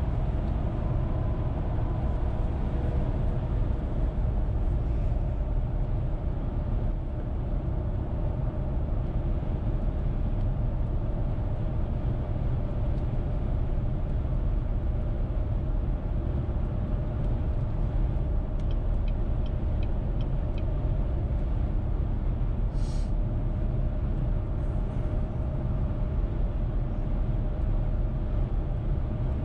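Steady road noise from a car cruising on the highway: a continuous low rumble of tyres and engine with a faint steady hum, heard from inside the cabin.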